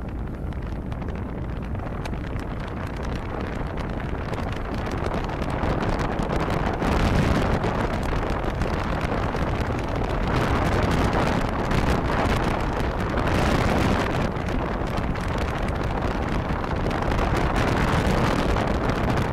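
Wind buffeting the microphone of a motorboat running at speed, over the steady rush of the boat's engine and hull across the water; the wind grows louder about a third of the way in and swells in gusts every few seconds.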